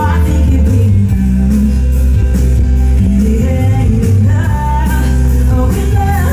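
Live rock band playing a song: guitar over a heavy, steady bass and drum backing, with a singing voice coming in about four seconds in.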